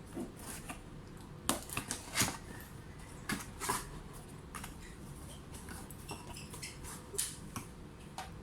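Hand-handling noises during a laptop unboxing: scattered sharp clicks, taps and short rustles of packaging, the loudest about one and a half and two seconds in.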